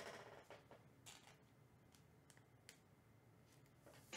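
Near silence, with a faint rustle at the start and a few scattered light clicks.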